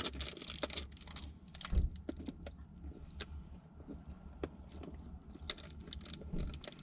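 Faint, irregular small clicks and crinkles of candy wrappers being handled and candy being eaten, with one louder soft knock about two seconds in, over a low steady hum.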